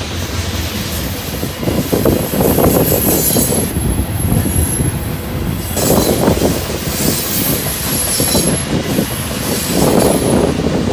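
Freight train cars rolling past, with a thin, high wheel squeal and swells of rumbling noise.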